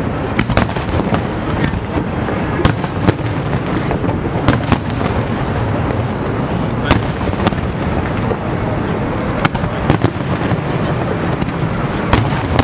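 Fireworks display: aerial shells bursting in a rapid, irregular run of sharp bangs and crackles over a constant dense rumble.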